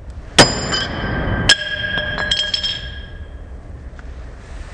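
Sledgehammer striking a steel bench vise twice, about a second apart, the first blow loudest. Each blow leaves a high, bell-like metallic ring that fades over a couple of seconds, with a few lighter clinks in between.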